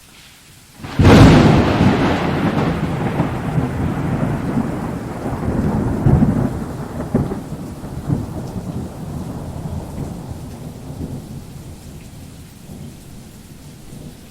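Thunder sound effect with rain: a sudden loud crack about a second in, then a long low rumble that swells a few times and slowly fades.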